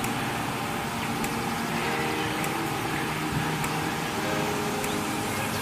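Soft background music of held, sustained notes that change every second or so, over a steady hiss.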